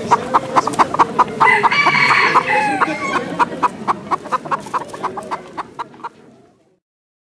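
Chickens clucking in a quick run of short calls, about four a second, with a rooster crowing from about a second and a half in. The sound fades away near the end.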